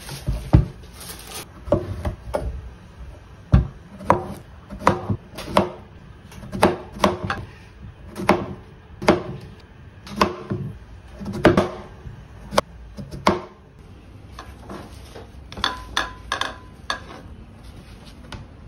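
Chef's knife slicing yellow zucchini into rounds on a plastic cutting board, the blade knocking the board in a steady run of cuts, one to two a second. The cutting stops a few seconds before the end, after a short cluster of quicker clicks.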